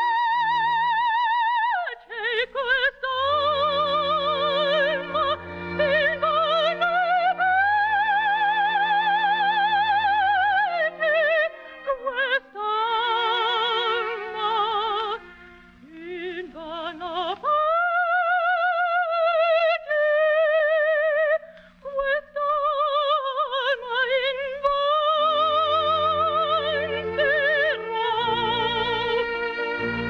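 A high operatic voice, most likely a young woman's soprano, sings with wide vibrato over orchestral accompaniment, heard on an old radio recording. The phrases are long and held, with short breaks between them.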